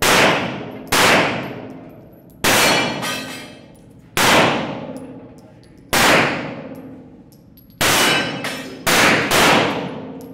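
Pistol shots fired one after another at an uneven pace, about one to two seconds apart, eight in all, the last two close together. Each shot is a sharp crack followed by a long echoing decay off the concrete walls of an indoor range.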